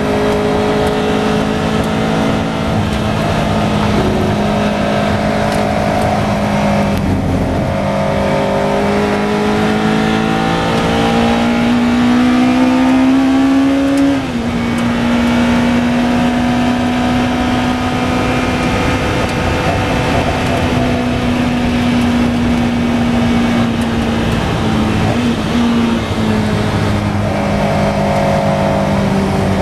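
In-car sound of a Lola T292 sports-racing car's engine at racing speed, heard over wind noise. The revs climb for several seconds up to a gear change about halfway through, then hold fairly steady. Near the end the engine note drops and wavers as the car slows for a corner.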